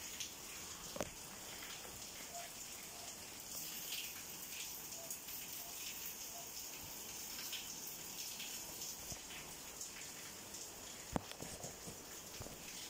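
Steady rain falling, a constant hiss, with two sharp clicks about a second in and near the end.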